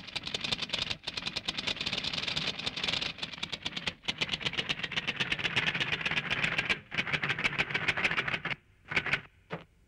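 Animation sound effect: a rapid, dense rattle of clicks, well over ten a second, that stops abruptly about eight and a half seconds in and is followed by a few separate clicks.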